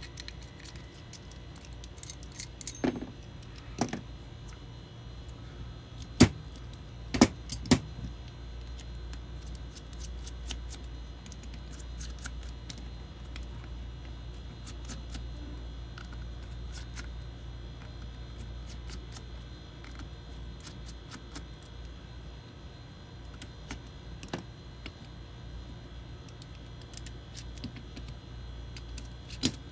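Small metal clicks, taps and rattles of an out-the-front (OTF) knife being taken apart by hand, scattered irregularly throughout, with a few sharper, louder clicks about six to eight seconds in, over a steady low hum.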